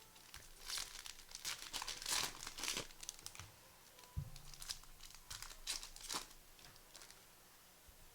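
Plastic trading card pack wrappers crinkling and tearing as packs are ripped open, in a run of quick rustles loudest near the start, with a dull thump about four seconds in.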